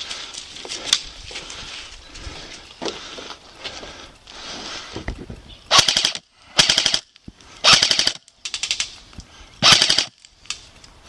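Airsoft gun firing four short full-auto bursts of rapid clicking shots in the second half, each burst about half a second long.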